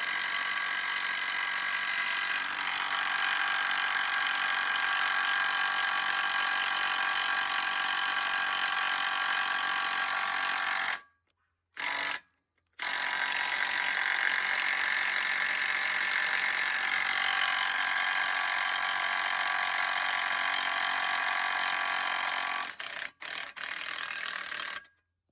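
Impact wrench hammering hard and continuously on a bolt torqued to 225 foot-pounds, struggling to break it loose. It stops about eleven seconds in, gives one short burst, hammers again for about ten seconds, then a few short bursts before it stops near the end.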